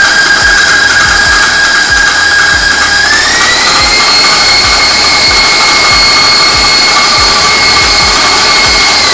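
Electric stand mixer with a wire whisk running, beating cream cheese filling in a steel bowl: a steady, loud motor whine that steps up to a higher pitch about three seconds in.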